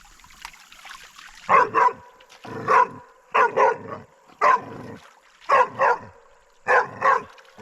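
A dog barking repeatedly at a foam ball, worked up over it: a run of loud barks about one a second, several in quick pairs, starting about a second and a half in.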